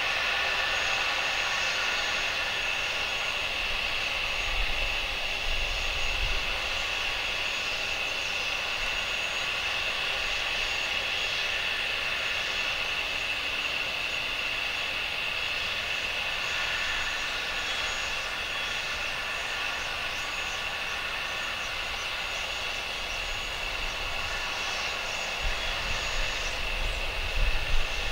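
Steady jet airliner engine noise at an airport: an even, unchanging whine and rush with a strong high tone, and a few low bumps near the start and near the end.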